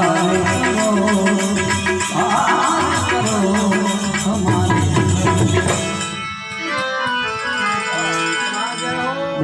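Gujarati devotional bhajan music: a sustained keyboard melody, likely harmonium, over steady rhythmic hand percussion with a shaking, rattle-like beat. The high percussion thins out about six seconds in, leaving the held melody tones.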